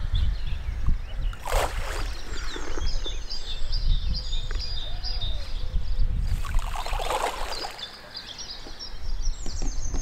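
Wind buffeting the microphone outdoors, with small birds chirping and singing throughout, and two brief rushes of noise, about one and a half seconds in and again around seven seconds in.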